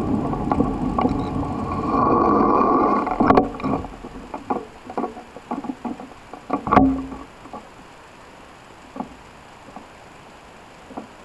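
Wind and rolling rumble of a bicycle ride on a paved path, dying away after about three seconds as the bike slows to a stop. Then scattered clicks and knocks from the stopped bike and camera, with one louder thump near the middle.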